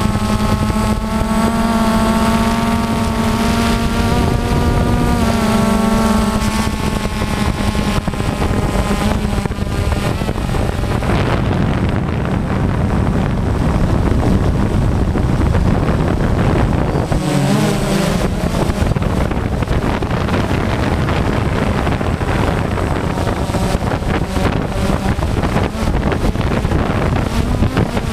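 DJI Phantom quadcopter's electric motors and propellers whining. Several tones shift up and down in pitch over the first ten seconds or so, then are mostly buried in heavy wind rushing over the onboard GoPro's microphone.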